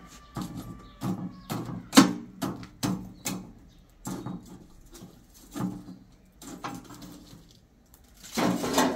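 Irregular knocks, taps and clatter of objects being handled, about one to two a second, with a louder, longer scraping or rustling noise near the end.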